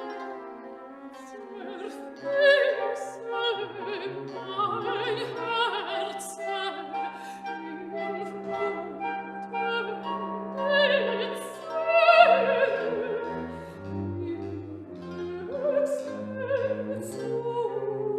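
Classical music: an operatic singer with strong vibrato, accompanied by an orchestra with strings.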